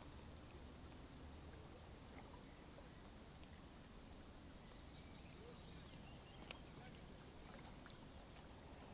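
Near silence: faint steady background hiss with a few tiny clicks.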